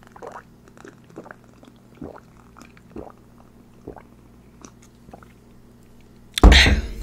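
A person gulping a drink close to the microphone, one swallow about every second, followed by a loud thump near the end.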